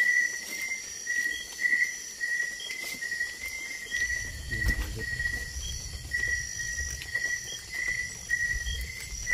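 Night insects chirping, a steady high pulsing chorus that repeats about twice a second. A low rumble comes in about four seconds in.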